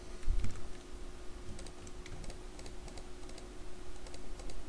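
Computer keyboard being typed on and clicked, with scattered light keystrokes and a low thump about a third of a second in, over a faint steady hum.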